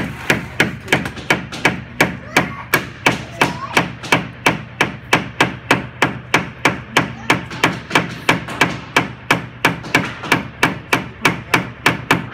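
Small hammer driving nails into the wooden body of a pull-back toy race car, a steady run of strikes about three a second that stops near the end.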